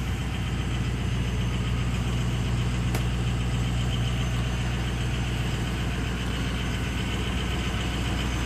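A limo bus's engine idling, heard from inside the passenger cabin as a steady low hum.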